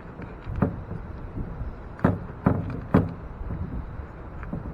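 Waves slapping against a small boat's hull in choppy water: about six irregular hollow thumps over a low steady rumble.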